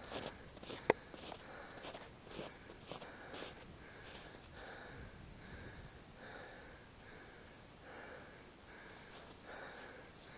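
Faint, soft, regular sounds from someone walking a snow-dusted trail, repeating about once or twice a second, with one sharp click about a second in.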